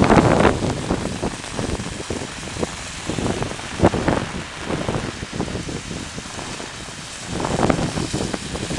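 Heavy rain with strong gusting wind buffeting the microphone, the gusts surging loudest at the start, about four seconds in, and near the end.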